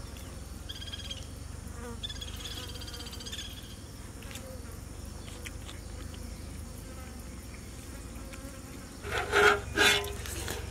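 Insects buzzing in an open field, with a few stretches of higher-pitched buzzing in the first few seconds. Two short, louder sounds come a little after nine seconds.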